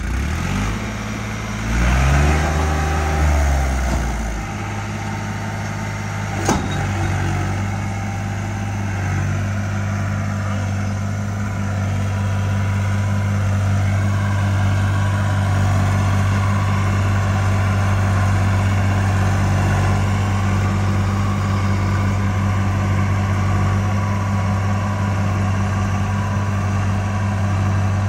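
Tractor diesel engine pulling hard under heavy load in four-wheel drive low gear, straining to haul an overloaded trolley up a steep slope. Its speed swells and drops in the first few seconds, then settles into a steady heavy drone, with a sharp click about six seconds in.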